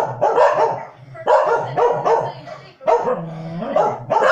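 Corgis barking repeatedly, about five or six sharp barks in quick succession, one a little drawn out near the end.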